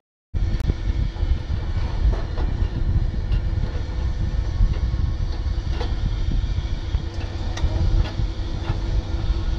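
EMD GT-26 locomotive's two-stroke diesel engine running steadily with a deep, even rumble, with scattered light clicks over it.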